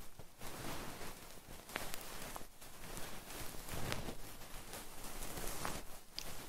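Close-up ASMR sounds on a sensitive microphone: soft rustling and scratching with scattered small clicks, and a brief high squeak near the end.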